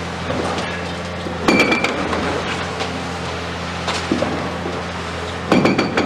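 A long-reach demolition excavator's attachment breaking the concrete wall of a tower, over the steady hum of the machine's diesel engine. Two bursts of sharp, ringing metallic clinks and knocks, one about a second and a half in and a faster run of them near the end.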